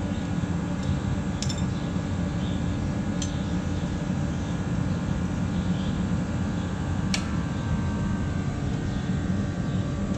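A steady, low mechanical drone of an unseen running machine, with three sharp metallic clinks of tools and parts on a planter row unit being taken apart. The sharpest clink comes about seven seconds in.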